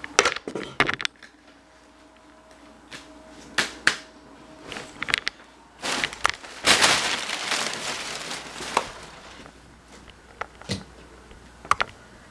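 Camera handling noise: a scatter of sharp clicks and knocks, with a few seconds of rustling from about six to nine seconds in, as the small camera on its mini tripod is picked up and carried.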